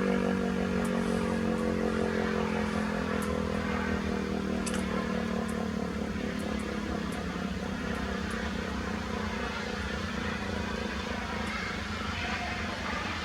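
ASC T-128 dual-tone rotating outdoor warning siren winding down: its two-note chord slowly drops in pitch and fades out over the first few seconds. A low background rumble is left after it.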